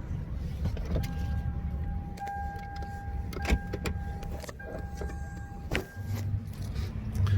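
Car idling with a steady low rumble, heard from inside the cabin. A steady high electronic tone sounds for about five seconds, broken once briefly, and a few sharp clicks come in along the way.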